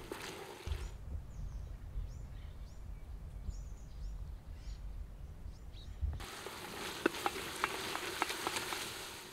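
Chopped onions and peppers sizzling as they fry in a cast-iron cauldron, with a wooden spoon stirring and knocking against the pot near the end. For a stretch in the middle the sizzle drops out, leaving a low rumble and faint high chirps.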